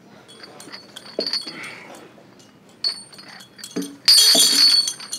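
Heavy steel chains hung around a man's neck clinking and clanking as he does weighted dips, with a loud burst of rattling about four seconds in.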